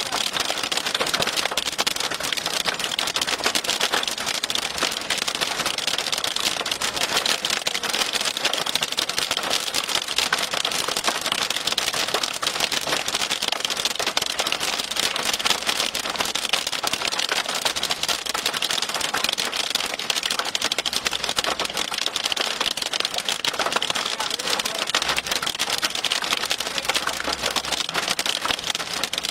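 Heavy rain pelting a vehicle's roof and glass, heard from inside the car as a steady, dense crackle of drops striking.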